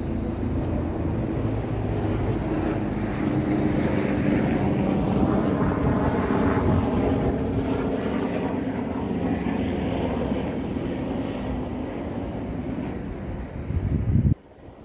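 A steady engine drone that builds over the first few seconds and then slowly eases. It cuts off abruptly just before the end.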